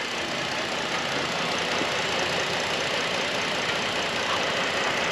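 2011 Lincoln MKX's 3.7-litre V6 idling steadily. It carries a cylinder 4 misfire (code P0304) behind its rough idle, though the misfire is barely showing at the moment.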